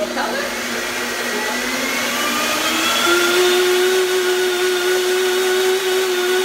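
Countertop blender motor running, puréeing a thick sunflower-seed and water crema. Its pitch rises gradually and steps up about halfway through.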